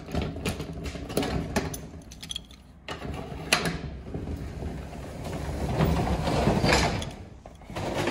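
Key working a disc padlock and the sliding bolt latch of a metal roll-up storage-unit door: scattered metal clicks and clanks, with one sharp click about halfway. In the second half comes a longer, swelling rattle as the roll-up door is raised.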